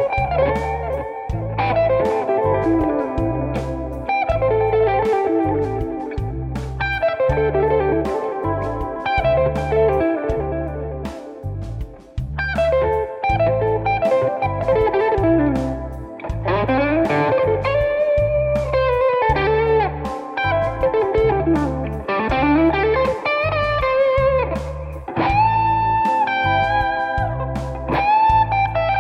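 Electric guitar playing A minor pentatonic scale runs and licks, stepping up and down the scale, with several bent notes sliding in pitch later on, over a steady low backing pulse.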